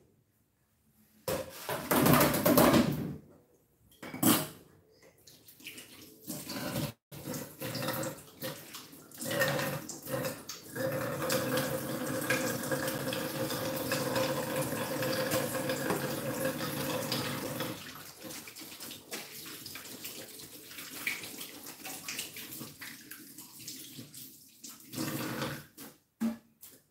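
Tap water running into a stainless-steel sink as dishes are washed, in short bursts at first and then a steady stretch through the middle, with dishes and utensils clattering and knocking in between.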